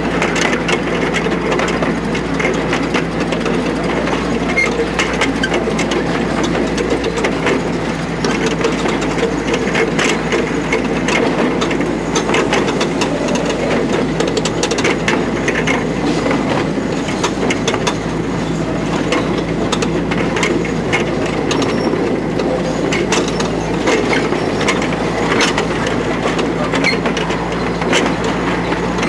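A 15-inch gauge miniature railway train's carriages running along the track: a steady rumble of wheels on rail with frequent irregular clicks and clatter, over a continuous low hum.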